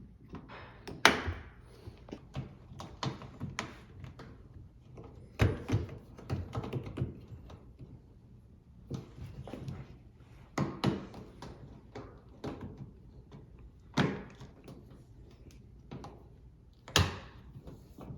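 Irregular knocks and thumps from hands working on a Samsung front-loading washing machine while its rubber door seal is folded over and hooked onto the cabinet, with a few sharper, louder thumps among softer handling sounds.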